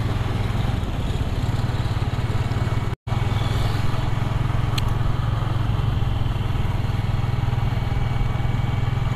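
Motorcycle engine running at a steady cruising speed while riding, with wind and road noise. The sound drops out for an instant about three seconds in.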